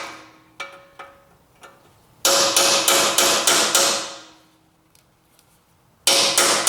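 Hammer blows on metal, ringing after each hit: a few light taps, then a fast run of about six strikes at roughly three a second, and after a pause another run starting near the end.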